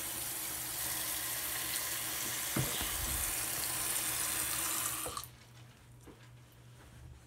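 Tap running into a white bathroom sink, the stream splashing on the basin around the drain, with a light knock about two and a half seconds in. The water is shut off about five seconds in.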